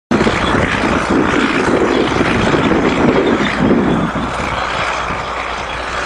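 Large crawler tractor's diesel engine running steadily under load while pulling a multi-furrow plough.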